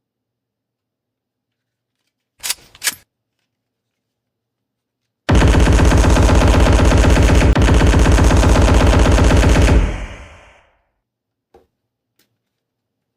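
Toy gun's electronic machine-gun sound effect: two clicks, then a loud rapid-fire burst lasting about four and a half seconds that fades out, followed by a faint click.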